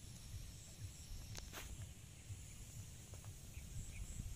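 Faint rural ambience: a steady high-pitched insect drone, with wind rumbling on the microphone and a couple of faint clicks about a second and a half in.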